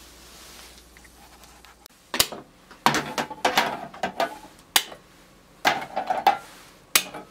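A faint low hum, then from about two seconds in a run of sharp clinks, knocks and scrapes: white enamel containers used as lids and a metal spatula clattering against small cast-iron skillets as the lids come off.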